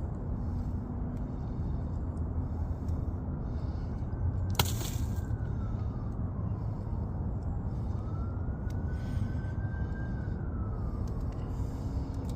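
A distant siren wailing slowly up and down over a steady low rumble, with one sharp click about four and a half seconds in.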